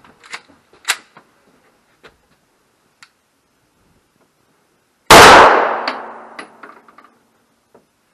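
A few faint clicks, then a single shot from a Canik TP9DA 9mm pistol about five seconds in, its report dying away over a couple of seconds.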